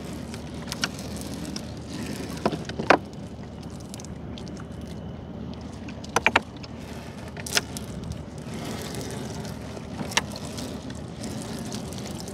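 Steady low rumble of a small river boat, with a handful of sharp knocks scattered through, the loudest about three seconds in and a quick pair just after six seconds.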